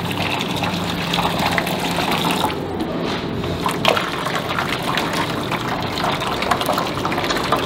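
Water poured in a steady stream into a stainless steel roasting pan, splashing onto the metal pan bottom beneath a wire rack as the pan fills for oven steaming.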